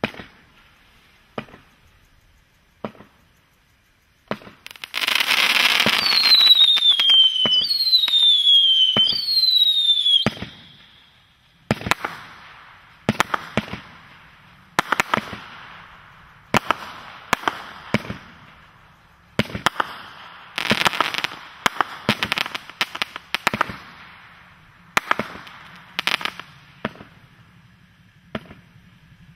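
Vulcan Knockout Punch firework going off. It starts with a few single sharp cracks, then about six seconds of loud rushing noise with three whistles that fall in pitch. After that comes a long string of sharp bangs, roughly one a second, each trailing off in crackle.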